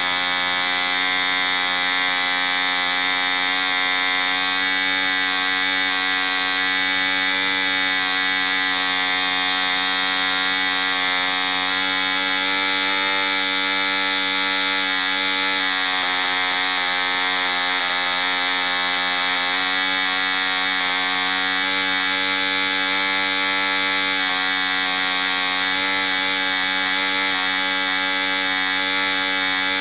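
ED Hunter 3.46 cc model diesel engine running steadily at about 6000 rpm on a test stand, turning an 11x6 wooden propeller. Its pitch wavers slightly partway through as the compression lever on top of the cylinder is adjusted with pliers.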